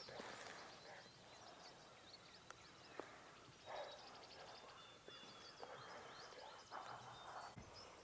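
Faint outdoor ambience with small songbirds chirping and twittering throughout, a thin high trill held through the second half, and a few soft rustles and a single click.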